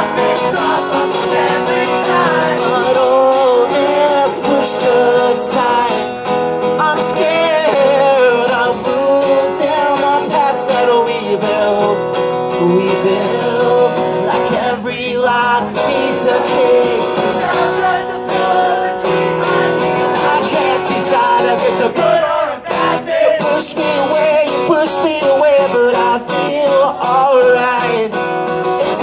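A man singing while strumming an acoustic guitar, played live.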